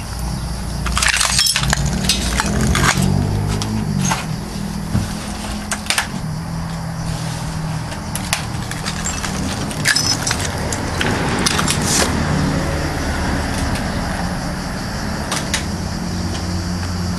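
Scattered clinks, rattles and crunches of broken glass and strewn debris being handled and stepped on, in irregular clusters, with a low hum underneath.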